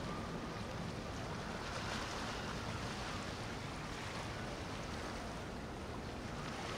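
Large motor yacht cruising slowly past: a steady low engine rumble with water washing along the hull.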